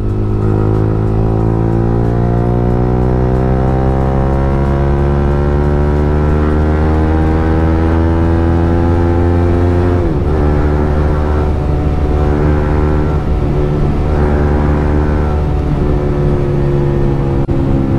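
Yamaha R15 M's single-cylinder engine running through an aftermarket exhaust, heard from on board while riding. The engine note climbs steadily for about ten seconds, drops sharply at a gear change, then climbs again more gently.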